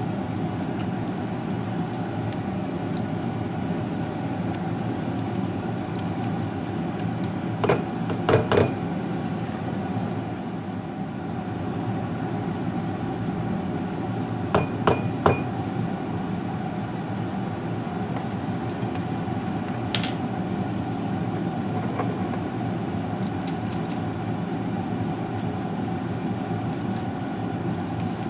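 Silicone spatula knocking against a stainless steel mixing bowl: two groups of three quick knocks several seconds apart, then a single knock and a few fainter clicks, over a steady mechanical hum.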